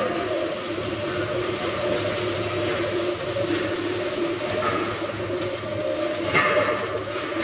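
Welding arc crackling steadily on a steel beam, over a steady low hum.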